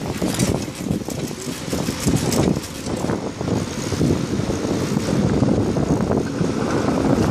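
Steady rumble of a bicycle riding along a city street, with road and wind noise close to the handlebars and traffic around it.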